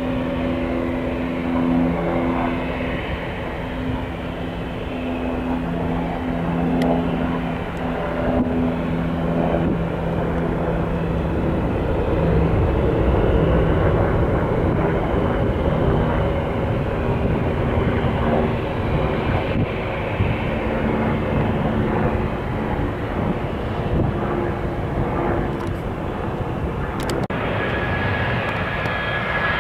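Jet airliner's twin engines at takeoff power: a continuous rumble with low steady tones that swells to its loudest about halfway through as the plane climbs away. Near the end it gives way to a twin-engine business jet on approach, with a high steady whine over its engine noise.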